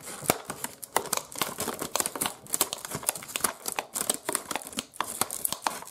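Scissors cutting through the hard clear plastic of a card repack box: a rapid, irregular series of sharp snips and crackles of the plastic.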